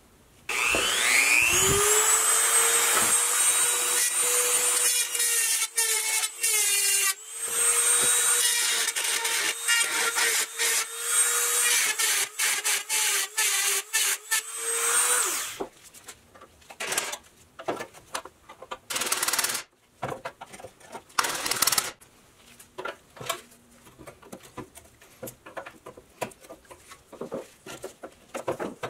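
A Dremel rotary tool with a carbide bit spins up to a high steady whine and grinds against the pressed-steel body of a vintage Tonka toy truck, then winds down about fifteen seconds in. After that come light clicks and scrapes of metal being handled with pliers.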